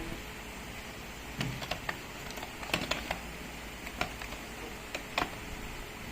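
Irregular sharp clicks and taps of small hard objects being handled, about ten of them spread over a few seconds, over a steady low hum.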